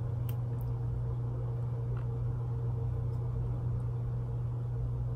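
A steady low hum of background room noise that does not change, with a few faint clicks, one near the start and one about two seconds in.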